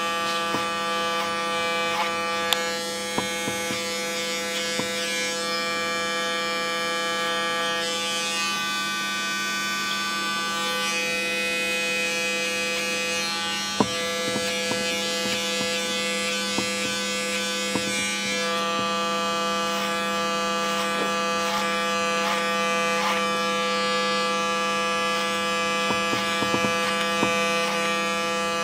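Electric hair clipper buzzing steadily as it is worked over a comb, cutting the hair at the nape short. A few short clicks break through the steady buzz.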